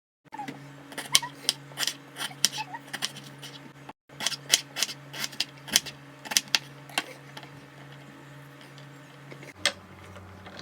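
Kitchen utensils knocking during food prep: a quick, irregular run of sharp knocks, about three a second, in two stretches, then one last knock near the end, over a steady low hum.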